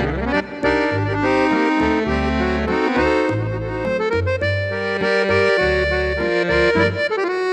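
Bugari EVO B55 button accordion playing a tune: a melody on the treble side over a rhythmic bass accompaniment, with one note sliding upward about four seconds in.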